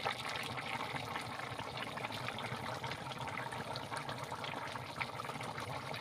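Cauliflower, tomato and potato curry boiling hard in an iron kadai: a steady bubbling with many small pops.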